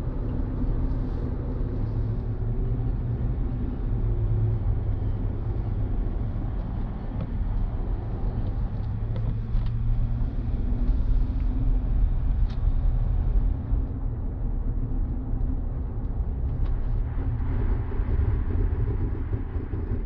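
Inside the cabin of a Land Rover Discovery 3 driving on studded winter tyres: a steady low road rumble with tyre hiss. Near the end the tyre hiss grows louder as the car slides under braking on an icy road.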